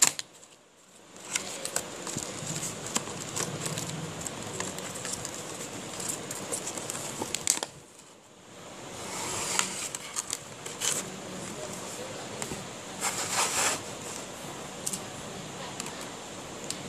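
Hands handling a cardboard retail box and its clear plastic packaging tray: scattered clicks, rustles and crinkles, with a denser crinkling rustle about thirteen seconds in.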